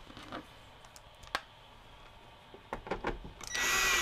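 A few faint clicks, then, near the end, a cordless drill-driver's motor starts up with a steady, slightly rising whine as it drives a screw into the bottom of a VCR.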